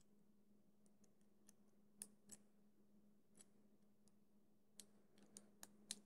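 Faint, irregular metallic clicks from a handcuff key being worked in the keyhole of TCH 840 rigid speedcuffs, with the loudest clicks about two seconds in and near the end, over a steady low hum.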